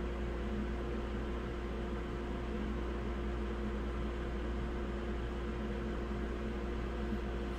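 Steady mechanical hum with a constant pitched tone over a deep rumble, unchanging throughout, with no distinct clicks or knocks.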